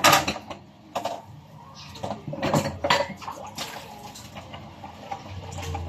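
Dishes and cutlery clattering in a few separate clinks and knocks, the loudest right at the start.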